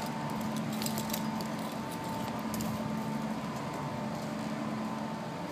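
Steady background hum: an even hiss with a constant low drone and a fainter higher steady tone, broken by a few faint clicks.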